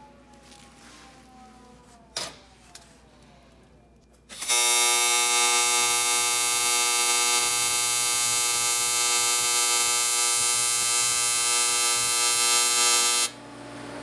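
AC TIG welding arc on aluminium plate: a loud, steady buzz made of many evenly spaced tones, struck about four and a half seconds in and cut off sharply about nine seconds later. A faint click about two seconds in.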